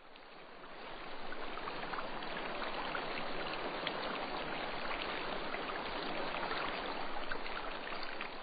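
Rushing water of a cascading mountain stream or waterfall: a steady splashing hiss that fades in over about the first second and starts to fade near the end.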